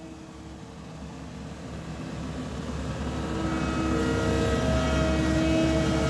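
Diesel engine of a tandem double-drum asphalt roller running as the roller drives closer, growing steadily louder. A low rumble carries several steady engine tones that come through clearly from about halfway in.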